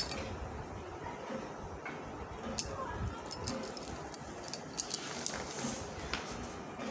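Handling of a saree and its clear plastic packaging: scattered light clicks and rustles over faint background noise.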